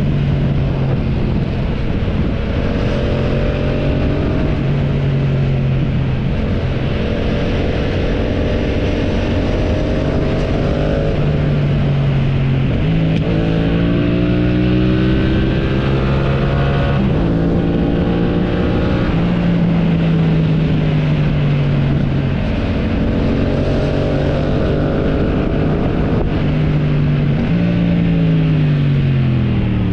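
Motorcycle engine under way, its pitch climbing and then stepping back several times as it pulls through gear changes. Near the end the pitch drops away steeply as the revs fall.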